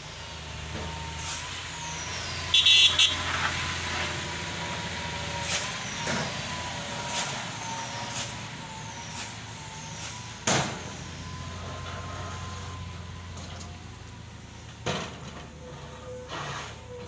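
Heavy diesel machinery running steadily with a wavering whine, scattered knocks and clanks throughout. A short, loud, pulsing high-pitched sound about three seconds in and a sharp knock about ten seconds in.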